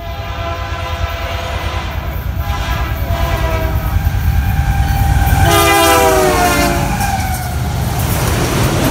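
Locomotive air horn sounding a chord of several notes as a train approaches: one long blast, then a second, louder one whose pitch drops as the locomotive passes close by. Under it, the rumble of the engine and wheels builds and stays loud as the railcars roll past.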